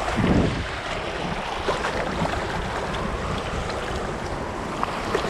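Wind rumbling on the microphone over water sloshing around a small boat, with a short louder swell of noise at the start and a few light clicks.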